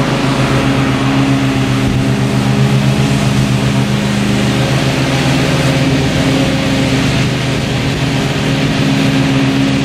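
Ride-on lawn mower's engine running steadily with its blades cutting tall grass and weed stalks, a constant low hum with a slight change in tone around the middle.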